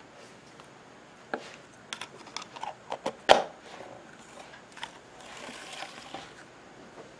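Small plastic jars, lid and dropper bottle handled on a workbench: a run of light clicks and taps, with one sharper knock a little over three seconds in, then a brief rustle.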